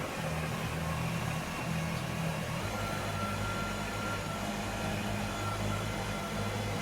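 Kubota BX compact tractor's diesel engine running steadily, its pitch shifting about two and a half seconds in.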